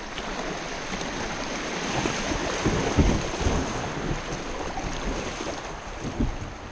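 Rushing river water through a shallow riffle around a paddled kayak, a steady wash with paddle splashes, louder in the middle. A few low thumps come about three seconds in and again near six seconds.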